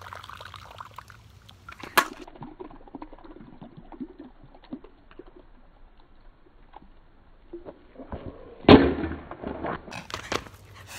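Soda running from a can into a bowl for about the first second. A sharp click comes about two seconds in. Near the end, an aluminium soda can drops into the bowl on the asphalt with a loud clatter.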